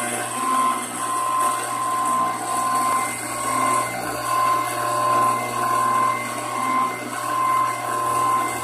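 400 W brushless CNC router spindle with an end mill cutting aluminium sheet. It makes a steady high whine that swells and dips about once a second as the cutter works along the slot.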